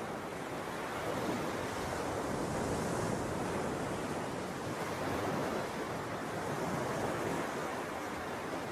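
Ocean surf, a steady wash of breaking waves with gentle swells in level.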